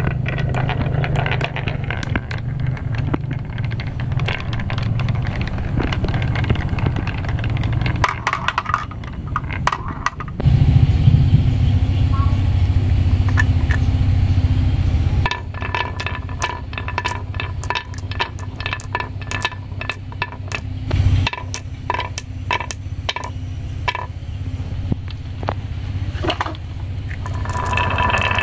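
Marbles rolling down carved wooden zigzag tracks with a steady low rumble. In the second half there are many sharp clacks as marbles knock against the wooden walls and each other while they pile up.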